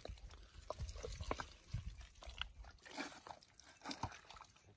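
Hands digging and squelching through wet mud, with a string of irregular wet clicks and small splashes.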